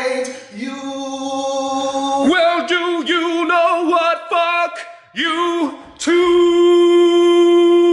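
A man singing a cappella: a held note, then a run of short wavering notes, then a long, loud held note from about six seconds in.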